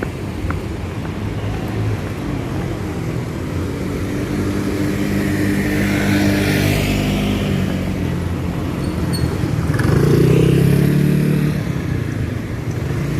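Street traffic: motor vehicles passing one after another, their engines swelling and fading, with the loudest one going by about ten seconds in.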